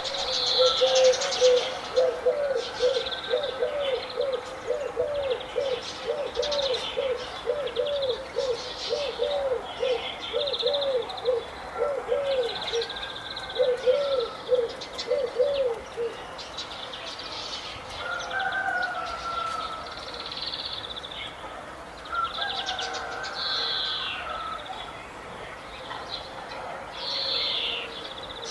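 Several birds calling together: many short high chirps throughout, and a fast run of low, repeated arched notes, about two a second, that stops about two-thirds of the way through.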